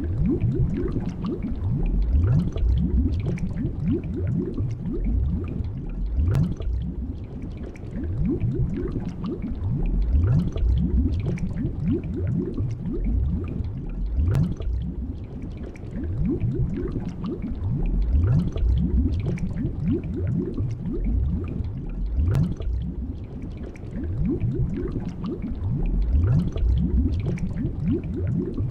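Underwater bubbling and gurgling: a steady stream of low, rising glugs with a few faint clicks.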